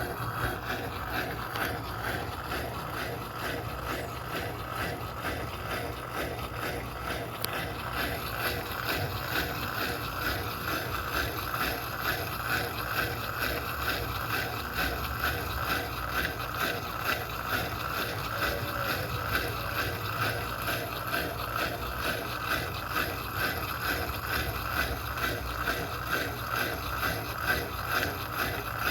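Electrolux Turbo Economia LTD06 top-loading washing machine running through a wash of coloured clothes, with a steady hum and, from about a third of the way in, a regular pulse about one and a half times a second.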